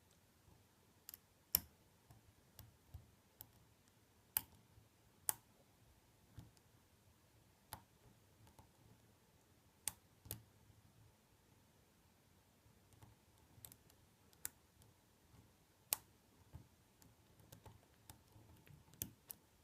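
Sparse, irregular small metallic clicks from single-pin picking an ABUS C83 padlock, the pick and tension wrench working its spool and serrated pins under light tension. A handful of the clicks are sharper than the rest, with near silence between them.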